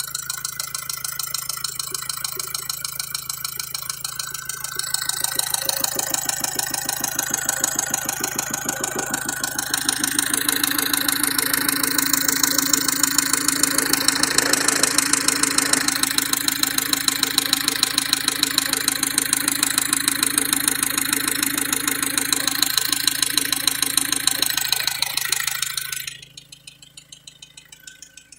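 Opel Vivaro's 1.9 F9Q four-cylinder diesel running warm with a rapid, even knocking, a knock that the owner says comes once the engine is warmed up. It gets louder about five seconds in and drops sharply near the end.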